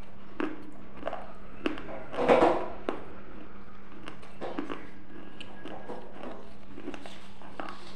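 Close-miked chewing of crunchy baked clay pot fragments: scattered small crunches and crackles, with a louder burst of crunching about two seconds in. A faint steady hum runs underneath.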